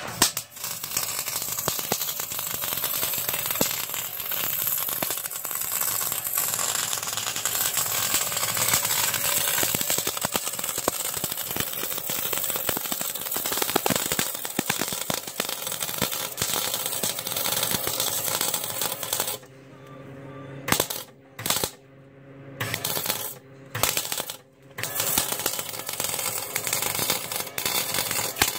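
110-volt gas-shielded MIG welder laying a butt weld on an exhaust pipe: the arc crackles and sizzles steadily for about twenty seconds. It then stops and restarts in several short bursts before running steadily again near the end.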